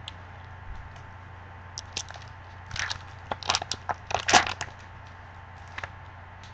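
A foil trading-card pack wrapper being torn open and crinkled by hand. A burst of crackling rips comes about three to four and a half seconds in, loudest near its end, with a few light clicks before and after.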